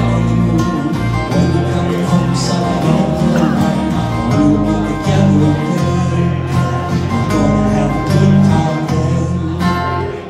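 Two acoustic guitars playing together live, chords ringing and changing every second or so, as an instrumental passage with no singing.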